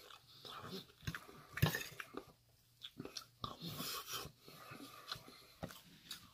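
Close-up chewing of a mouthful of fried rice and stir-fried food: irregular mouth smacks and small clicks, the loudest about a second and a half in.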